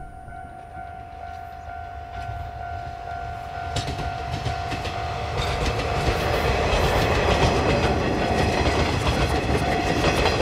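Steam-hauled train behind a C12 tank locomotive approaching: a low rumble builds, then the clatter of wheels over the rails grows louder from about halfway in. A steady high tone fades out around the same time.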